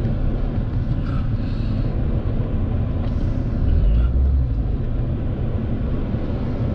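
Car cabin noise while driving slowly: a steady low rumble of engine and tyres, swelling briefly about four seconds in.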